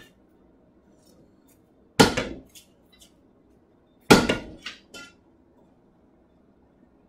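Hammer blows on the hot steel sword blade at the anvil: two heavy strikes about two seconds apart, each followed by a couple of lighter taps.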